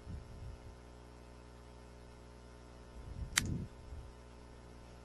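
Steady low electrical hum, with a single computer mouse click about three and a half seconds in.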